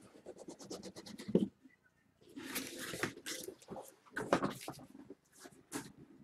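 Cardboard case and shrink-wrapped card boxes being handled: quick scraping and rustling, with a few knocks as the boxes are pulled out and stood on the table, and a short pause about two seconds in.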